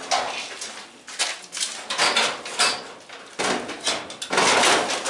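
Sheet metal of the old furnace and its ductwork being handled, giving irregular clanks and knocks and then a longer scraping rattle about three and a half seconds in.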